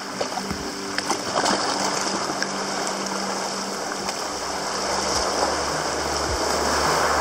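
Seawater rushing and splashing around a sea kayak's bow as it surges through a rocky gap: a steady churning wash with small splashes, a little louder near the end.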